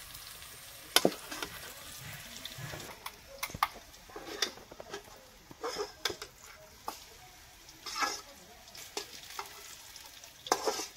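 Metal spoon scraping and clinking in a steel kadai as fried potato slices and onion are scooped out into a bowl, in irregular strokes over a light sizzle of hot oil.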